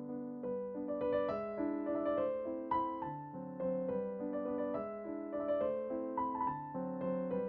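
Background music played on piano or electric piano: a gentle, steady melody over chords.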